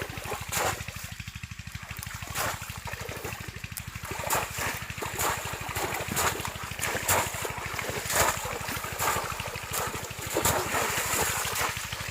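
Shallow river water splashing and dribbling in irregular splashes, as if stirred by people wading or working fish traps, over a steady low rumble.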